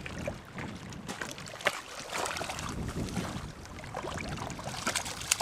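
Water splashing and sloshing at the lake's edge, with wind on the microphone and a few sharp clicks and knocks from handling.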